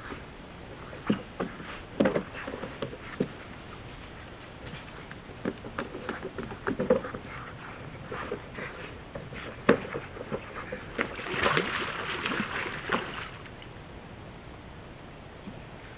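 North American river otters wrestling on a wooden plank boardwalk: scattered knocks and scuffs of their bodies and claws on the boards. A burst of splashing comes a little past the middle as one otter goes into the water.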